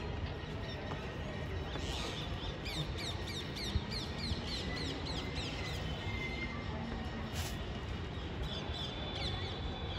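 Small birds chirping: a run of short, high, falling chirps, about two a second, over steady low background noise.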